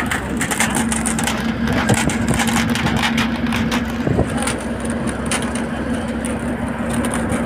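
Cabin noise of a bus driving at speed: engine and road noise with constant rattling of the body and windows, and a steady drone that comes in just after the start.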